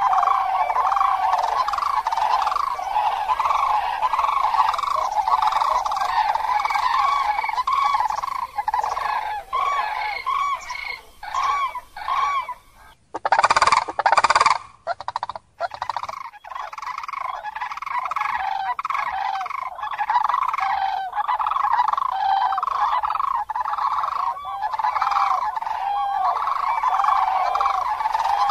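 A flock of common cranes calling in flight, many overlapping trumpeting calls repeating without pause. About halfway through the calling breaks off briefly, with two short, louder, harsher bursts before it resumes.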